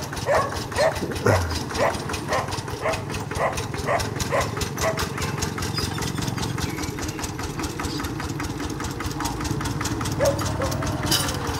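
A dog barking in a steady run of about two barks a second, stopping about four seconds in, over the steady running of a Kubota two-wheel walking tractor's single-cylinder diesel engine.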